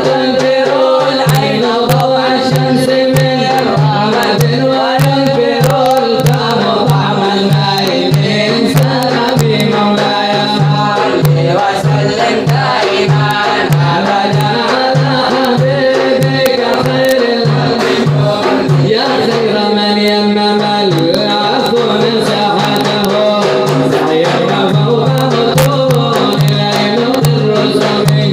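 Middle Eastern devotional nasheed music: a steady hand-drum beat, about two strokes a second, under a wavering melody, with no words sung.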